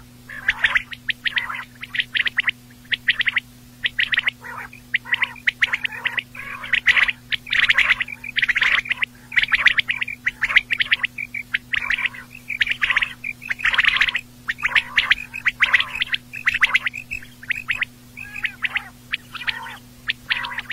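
Quail calling over and over: short clusters of rapid clicky notes, about one cluster a second. A faint steady low hum runs beneath.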